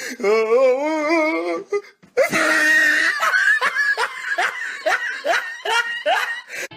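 Two stretches of laughing: first a warbling, wavering laugh for about two seconds, then after a short break a high-pitched laugh of repeated rising 'ha' sounds, about two a second.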